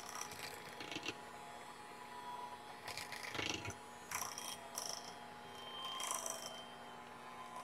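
Electric hand mixer running at a steady hum, its beaters working thick choux pastry dough as eggs are beaten in, in a stainless steel saucepan. A few short scraping sounds come from the beaters against the pan.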